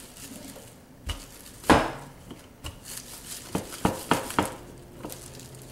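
Wooden rolling pin being pressed and rolled over chicken breasts under plastic wrap on a granite counter, with several sharp, irregular knocks as it bumps the counter. The loudest knock comes about a second and a half in, and a quick run of them near the end.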